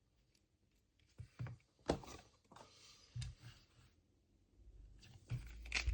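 MoYu Meilong V2 pyraminx being turned by hand: a few scattered clicks and knocks of its pieces with light handling rustle, the turning picking up near the end.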